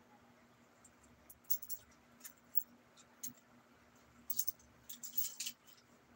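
Irregular crackling and rustling of a small white packet being handled in the hands, busiest about four to five seconds in, over a faint steady hum.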